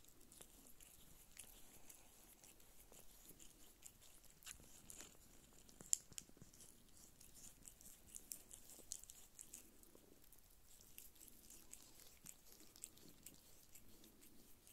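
Faint, irregular wet clicks and smacks of Don Sphynx kittens suckling at their mother's teats, with one sharper click about six seconds in.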